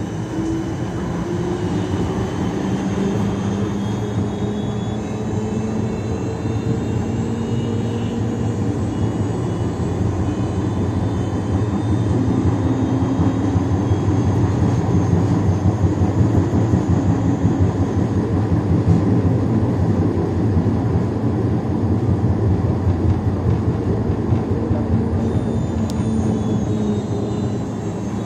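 Siemens Combino Plus tram running, its traction motors whining in tones that rise in pitch over the first several seconds as it gathers speed, over a steady rumble of wheels on rail that grows louder about halfway through.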